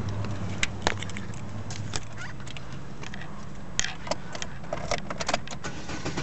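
Chevrolet Cruze 1.8-litre four-cylinder engine idling as a steady low hum, heard from inside the cabin, with many scattered light clicks and rattles on top.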